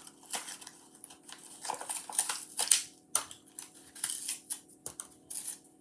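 Toy car blister packs being handled: irregular clicks, taps and short crinkles of plastic and card.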